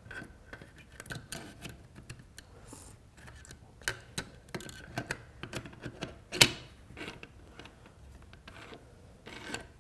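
The steel bolt of an M5 pump shotgun being fitted into the receiver and slid along it by hand: irregular small metal clicks and scrapes, with one sharper click about six and a half seconds in.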